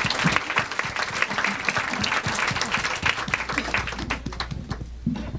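Audience applauding, a dense patter of many hands clapping that thins out and fades toward the end.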